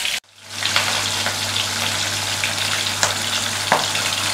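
Vetki (barramundi) steaks shallow-frying in mustard oil in a kadai: a steady sizzle with small crackles, cutting out for a moment just after the start and then resuming. A faint low hum runs underneath.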